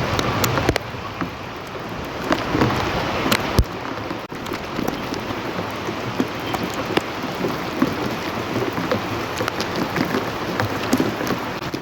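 Rain falling steadily, a dense hiss with many individual drops tapping sharply close by.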